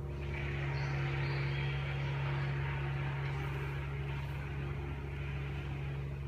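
Steady low hum with an even hiss of room noise.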